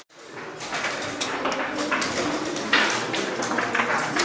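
Ambience of a large hall during a children's chess tournament: frequent small clicks and clacks of chess pieces and clocks over a low steady hubbub, fading in from near silence just after the start.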